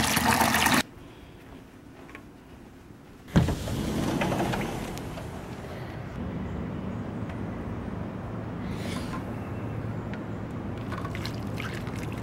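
Kitchen tap running hard into a plastic container, cut off abruptly after under a second. A sharp knock about three seconds in, then a steady low background, with water from the container trickling onto potting soil near the end.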